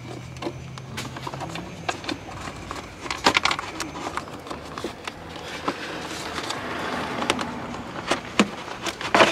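Lexus RC F's plastic engine air-filter box being worked open by hand to pull the old filter: scattered clicks and knocks of the plastic lid and clips, with a scraping rustle in the middle as the filter is worked out.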